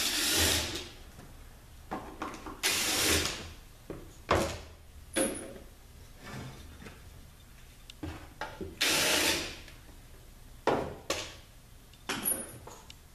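Tool work on the ZF8HP70 transmission's oil pan bolts, in three short hissing bursts of under a second each, with several sharp knocks and clinks of metal parts in between.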